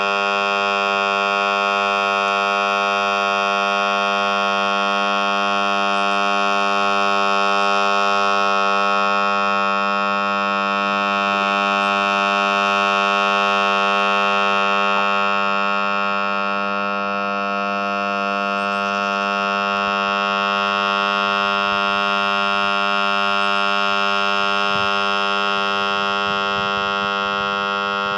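Electric lawn mower motor, stalled by a failed winding and left powered on, giving a loud, steady electrical buzz as it cooks toward burning out.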